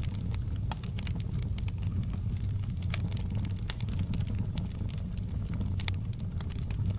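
Wood fire burning in a fireplace: a steady low rumble of flames with frequent, irregular sharp crackles and pops from the logs.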